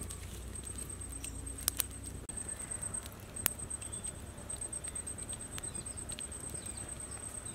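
Wood fire crackling under a large lidded aluminium cooking pot, with a few sharp pops scattered through, over a steady high, finely pulsed tone in the background.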